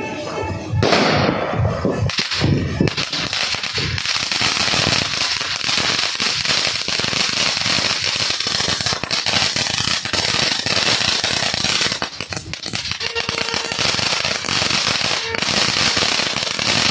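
Ground fountain firework (Phoenix Happy Flower Jumbo Fountain) burning: a hissing rush of sparks full of dense crackling, starting about a second in.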